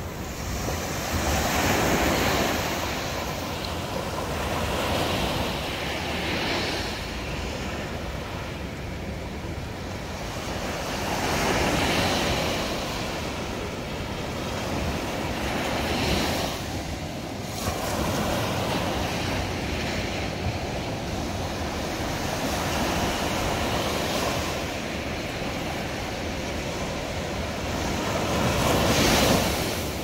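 Ocean surf: small waves breaking and washing up a sandy beach, the rush of water swelling and fading every few seconds, with the loudest wash near the end.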